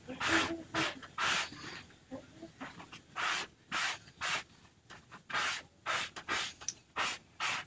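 A run of short rubbing or scraping strokes, irregular at about one or two a second.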